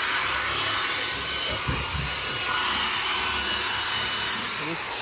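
A spinning brush scrubbing sprayed carpet cleaner into carpet: a steady whirring scrub with a faint motor whine that stops at the very end.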